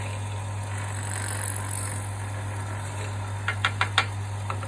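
Wood lathe running steadily while a long thin drill bores into a dense burl-wood block, with a low motor hum under the cutting. A few sharp clicks come in quick succession near the end.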